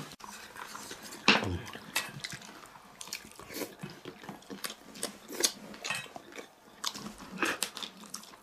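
A man gnawing and chewing meat off a stewed cured bone held in his hand: irregular wet smacking, sucking and biting sounds, the sharpest smack about a second in.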